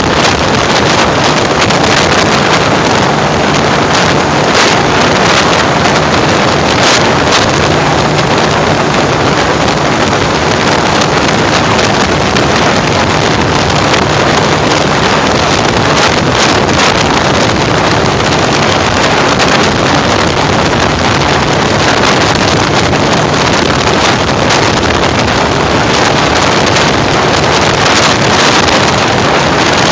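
Honda CG 125 motorcycle's single-cylinder four-stroke engine running steadily on the move through a modified pre-2013-style silencer, with heavy wind noise on the microphone.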